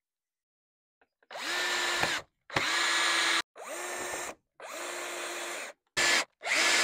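Cordless drill driving screws into the end of a wooden branch: the motor runs in six short bursts of about a second or less, each winding up and then down, with brief pauses between.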